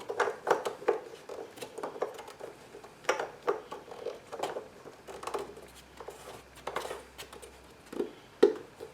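Irregular light clicks and knocks of hands handling parts under the hood, as the engine's plastic oil filler cap is screwed back on and the fill point tidied up.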